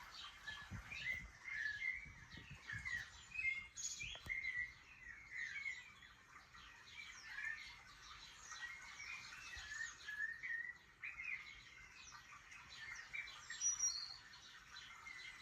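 A chorus of small songbirds chirping and twittering: many short, quick calls overlapping without a break. A faint click sounds about four seconds in.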